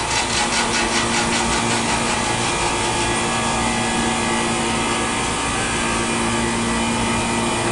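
Soft-serve ice cream machine running as ice cream is dispensed into a cone: a loud, steady mechanical hum with several steady tones, pulsing rapidly for the first few seconds.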